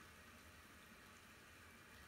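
Very faint, steady sound of a pot of salted water at a gentle boil on a gas stove.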